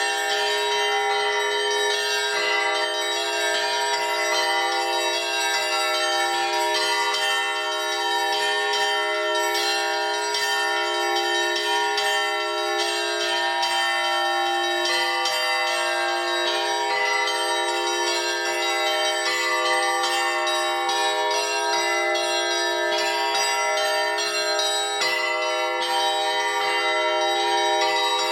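Russian Orthodox church bells in a festive Christmas peal, played by a single bell-ringer: many bells of different pitches sound together and keep ringing, their tones overlapping in a dense, continuous ring.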